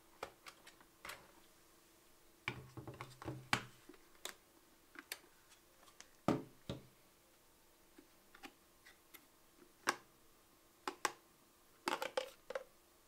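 Irregular clicks, knocks and rattles of hard plastic as the dust container of a Bosch BBH214 cordless handheld vacuum is taken off and its filter pulled out. The loudest knocks come in clusters about a third of the way in, at about the middle, and near the end.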